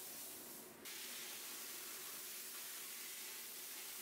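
Small pressure-pot sandblaster spraying fine abrasive through its hand nozzle to strip the old finish off wood, a steady hiss. It briefly dips and comes back sharply just under a second in.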